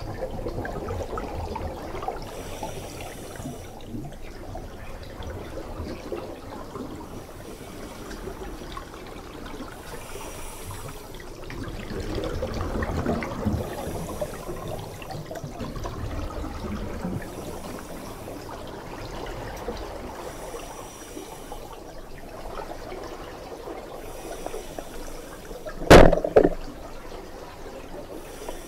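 Muffled underwater rushing of water and movement noise, swelling about halfway through. About 26 seconds in comes one loud sharp crack with a smaller one just after it, the band-powered speargun firing.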